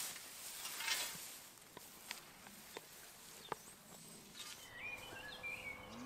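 Faint outdoor meadow ambience: a few light scattered clicks, then short bird chirps in the last couple of seconds.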